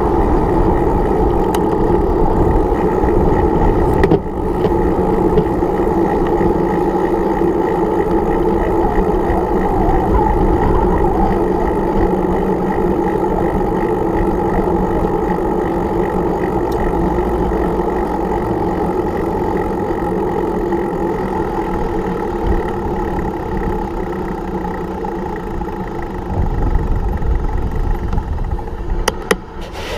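Steady road noise of a bicycle ride in car traffic, with vehicle engine sound close by. A click about four seconds in and a few more near the end.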